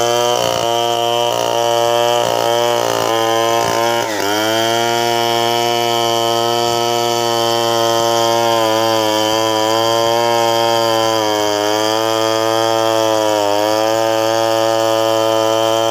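Gasoline chainsaw running at high throttle while ripping lengthwise through an Antipolo log to cut a plank. The engine note is uneven for the first few seconds and drops sharply about four seconds in. After that it holds steady, with brief dips in pitch as the chain bogs under load in the wood.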